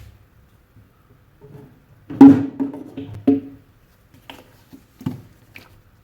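A sponge soaked with dishwashing detergent and Cif being squeezed in the hand: a loud wet squelch about two seconds in, a run of squeaky creaks over the next second, then a few smaller squelches near the end.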